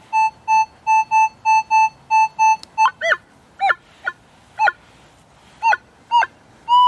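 Minelab CTX 3030 metal detector sounding off over a buried metal target: a quick run of about ten short beeps at one pitch, then short chirps that rise and fall in pitch at uneven intervals, then a long steady tone starting near the end. It is a strong signal, which the detectorist calls a sweet signal.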